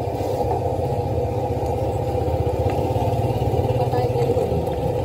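Steady low mechanical rumble with a constant hum, running evenly with no distinct separate events.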